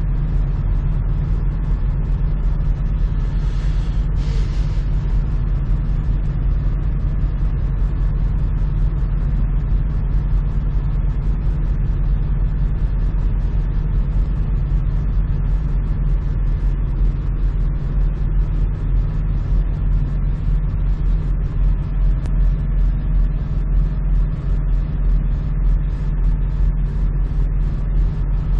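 Semi-truck's engine running with a steady low rumble as the truck is driven slowly, with a brief hiss about four seconds in.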